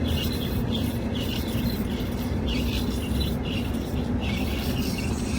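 Swamp cooler blower and motor running with a steady low hum, and a high chirp repeating about twice a second.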